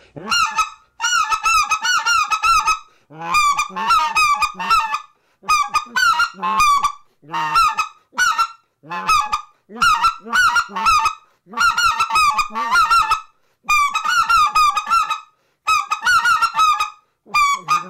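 RedBone goose call blown by mouth in strings of quick honks and clucks, each string a second or two long with short breaks between, blending low raspy scratch notes with clear-air notes.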